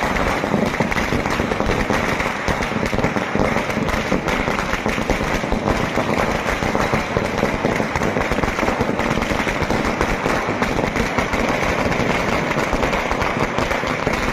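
Firecrackers going off in a dense, rapid, unbroken crackle that keeps up at a steady level with no pause.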